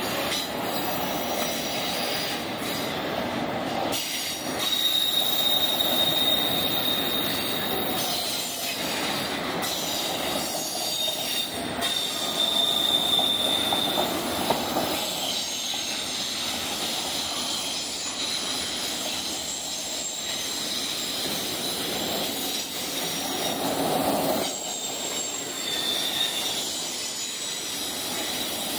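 Autorack freight cars rolling past on steel rails in a steady rumble, with a thin, high-pitched wheel squeal that comes and goes several times.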